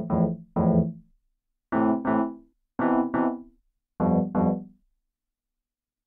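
ReFX Nexus 2 software synthesizer playing its 80s "PN Toy Keyboard" piano preset: short keyboard chords struck in pairs, each dying away quickly, stopping a little before five seconds in.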